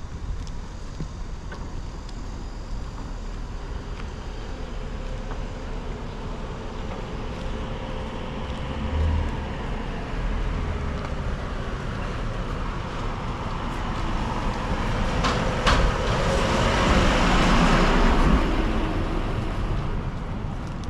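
Road traffic on a street: a steady low rumble, with a vehicle passing close by that swells up over the last third and fades away near the end.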